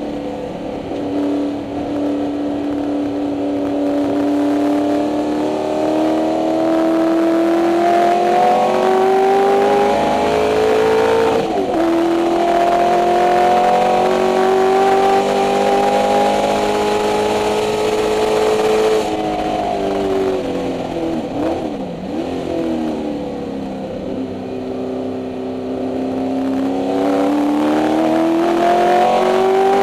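The 289 Windsor V8 of a 1964 Ford Mustang race car, heard from inside the cabin, pulling hard through the gears. The engine note climbs, drops at an upshift about eleven seconds in, and climbs again. It falls away a little before twenty seconds, with quick throttle blips on the downshifts, then climbs once more near the end.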